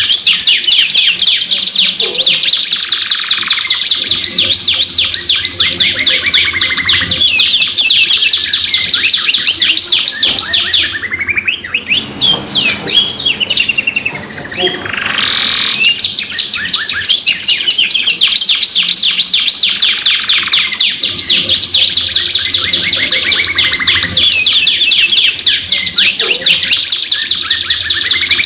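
Domestic canaries singing: long, loud rolling trills of very rapid repeated notes, changing about halfway through to a few seconds of slower, gliding phrases before the fast trills resume.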